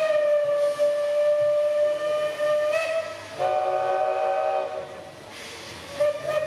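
Steam locomotive whistles: a long steady single-pitch blast for nearly three seconds, then a deeper whistle sounding a chord of several notes for over a second, and a short blast near the end, over a background of hissing steam.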